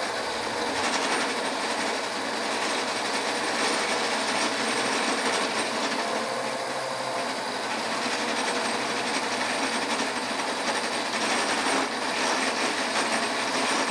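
End mill on a homemade milling machine cutting into a metal bar held in a cross-slide vise, a steady grinding cut with the spindle running. The cut chatters from vibration in the vise, the base and the machine's cast iron post, while the mill head stays solid.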